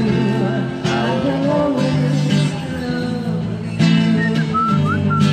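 Acoustic guitar strummed about once a second, accompanying a woman singing through a microphone in a live amplified performance.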